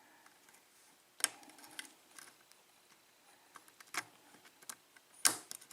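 Lock pick working the pin tumblers of a Schlage five-pin pin-tumbler lock: faint metallic scraping and a handful of sharp clicks as pins are probed and set, the loudest click near the end.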